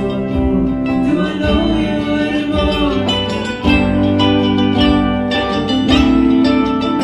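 Live band music: electric guitars, keyboard and hand drums playing together steadily.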